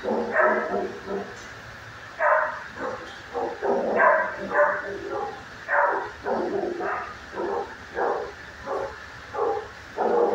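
Dog barking repeatedly, roughly one to two barks a second with short gaps between runs.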